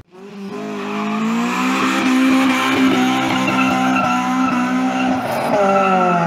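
A car engine held at high revs with tyres squealing, as in a burnout. It swells up from silence in the first second, holds steady, and dips briefly in pitch just before the end.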